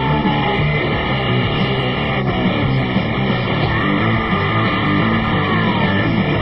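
Loud rock music with guitar, playing steadily, with held high notes that slide down in pitch.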